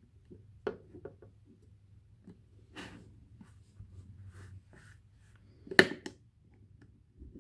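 Plastic snap rat trap being handled and set: scattered light plastic clicks and rattles from its jaws, trigger and wire bar, with one sharp, loud click near the end.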